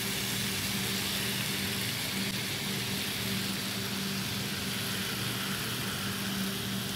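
Tomato sauce sizzling on the hot, freshly baked manti and tray as it is spooned on, a steady hiss over a low steady hum.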